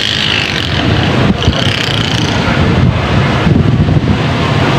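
Thunderstorm wind gusting against the phone's microphone: a loud, continuous buffeting rumble with a hiss above it.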